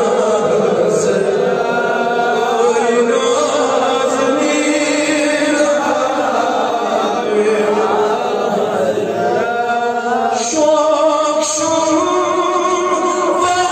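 Melodic chanted singing by a voice, a devotional recitation with long held, wavering notes; a new phrase begins about ten seconds in.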